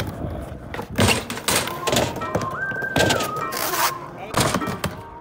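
Skateboard wheels and deck knocking against a wooden launch ramp and concrete, several sharp hard knocks. Background music comes in about two seconds in.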